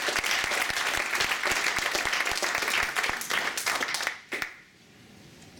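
A small audience applauding; the clapping dies away about four seconds in, with a last single clap.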